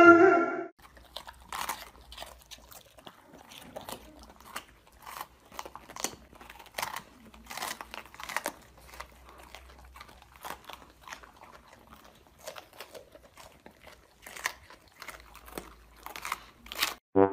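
Two golden retrievers, an adult and a puppy, biting and chewing raw green bell peppers: irregular crunches, about one or two a second, with quiet gaps between. A dog's howl cuts off in the first second.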